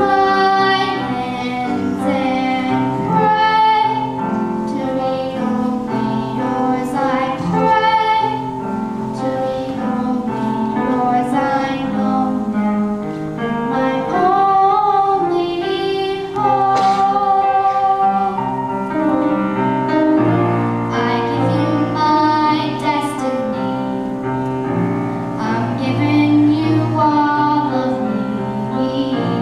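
A young girl singing solo through a handheld microphone, with instrumental accompaniment.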